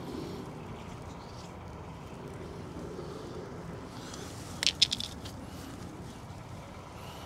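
A few sharp metallic clicks in quick succession about two-thirds of the way in, from a hand grease gun being taken apart to reload its grease cartridge, over a steady low rumble.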